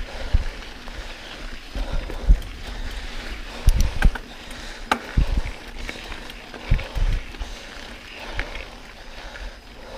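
Mountain bike riding over a rough trail: irregular low thumps and rattling, with a cluster of sharp clicks and clatters about four to five seconds in.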